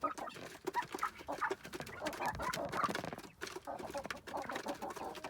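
A flock of adult chickens and young chicks clucking and calling over one another, with short calls coming quickly, mixed with clicks and scuffling as they move about.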